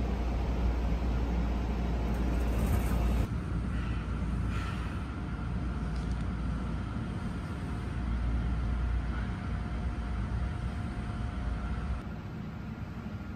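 Steady rumble and hum of the airport Skytrain people-mover station, with faint steady whines. The low rumble drops off a few seconds in, and the sound steps down quieter near the end.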